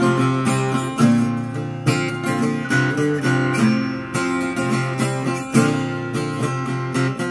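Acoustic guitar flatpicked: a quick run of picked notes and strums in a G major, country-flavoured solo.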